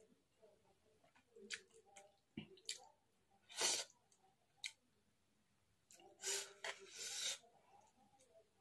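Close-up eating sounds from a person eating chow mein noodles: soft wet chewing with small mouth and lip clicks, and short sucking slurps, loudest about three and a half seconds in and again, longer, around six to seven seconds.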